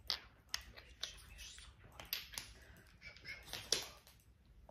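Cosmetics being handled close to the microphone: scattered sharp clicks and taps, with soft whispering between them.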